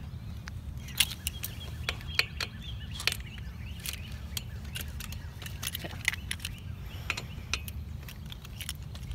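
Size 6 Allen key loosening the pinch bolts of a BMX stem: irregular sharp metallic clicks and clinks as the key seats in the bolt heads, turns and is repositioned, over a low steady rumble.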